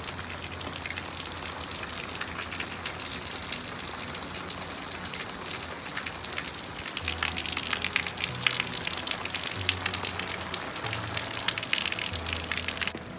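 Heavy rain falling on an umbrella, a dense patter of drops over rushing runoff water. The rain grows louder about seven seconds in and cuts off abruptly near the end.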